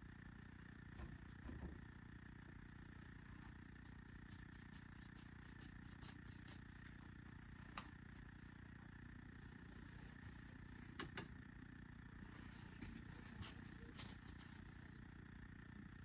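Near silence: steady low room hum with a few faint clicks and taps.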